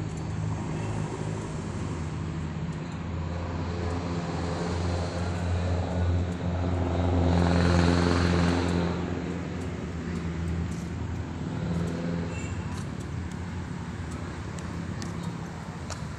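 A vehicle engine running steadily, with a passing vehicle's noise that swells to its loudest about halfway through and then fades away. A few light clicks come in the second half.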